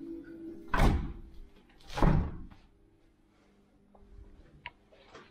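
Two heavy thuds of a hotel room door about a second apart, each dying away quickly.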